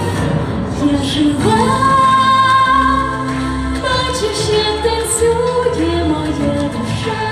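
A young female singer singing a Ukrainian pop ballad into a handheld microphone over backing music, holding long notes.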